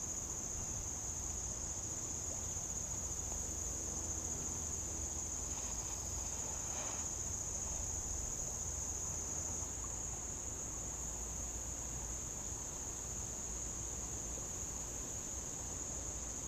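A chorus of insects singing in one steady, high-pitched drone, easing slightly about ten seconds in.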